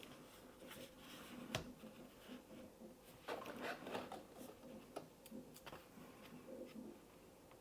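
Faint handling sounds of hands working on a MacBook Air's bottom case: scattered light clicks and taps, one sharper tick about a second and a half in, and a short scratchy rustle around three to four seconds in.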